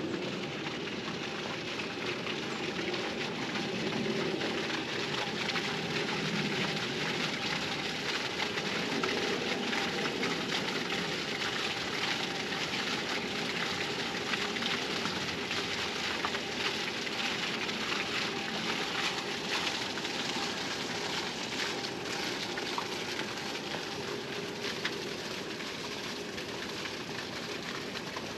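Steady splashing of water falling into a fountain pool, a little louder through the middle.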